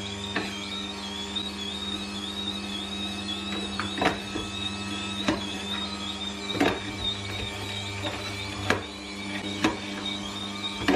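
Electric juicer running steadily with a motor hum and whine, with sharp knocks every second or so as pieces of wild greens and apples are pushed through.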